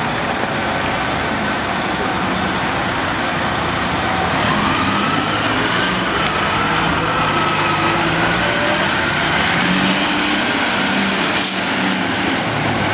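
Fire truck's diesel engine running steadily.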